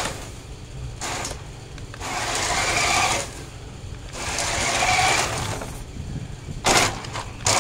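Electric motor and gears of a 1:10 RC drift car whining in bursts as it accelerates across a concrete floor: two longer bursts of about a second each in the middle, with short blips near the start and end.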